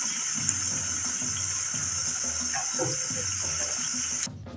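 Spinach-and-bread patties deep-frying in hot oil in a pan: a steady sizzling hiss that cuts off abruptly about four seconds in.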